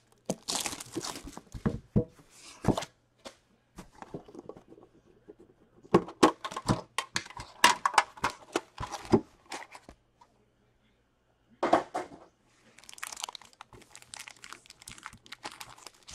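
Plastic wrapping being torn off a sealed trading card box, with the box's packs and wrappers crinkling and clicking as they are handled. It comes in irregular bursts, with a short pause about two-thirds of the way through.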